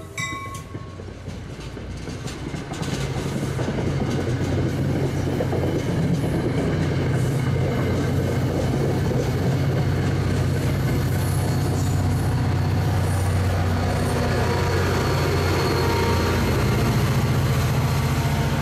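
NJ Transit commuter train passing close by: coach wheels clattering over the rails and a steady low diesel drone from the EMD GP40PH-2B locomotive pushing at the rear. The sound swells over the first few seconds and then holds steady.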